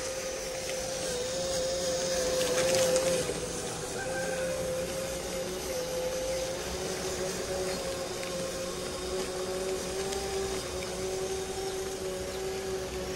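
Radio-controlled model truck's electric drive motor and gearbox whining steadily as it drives, the whine wavering slightly in pitch, briefly louder about two to three seconds in.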